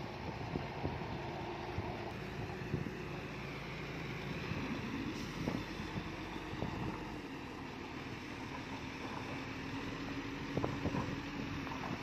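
Heavy diesel engine of earthmoving machinery running steadily, its pitch dropping a little about halfway through, with a few scattered knocks.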